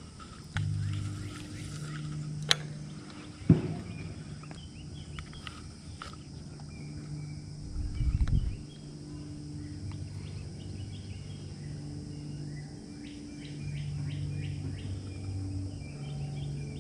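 Outdoor marsh ambience: small birds and insects chirping over a low hum that comes and goes. There are two sharp knocks a few seconds in and a short low rumble near the middle.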